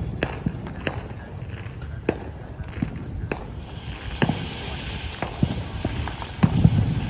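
Brothers Pyrotechnics Flash Mob 7-inch tube fountain catching about three and a half seconds in and spraying sparks with a steady hiss. Sharp pops and cracks come at irregular intervals throughout, some before the fountain takes.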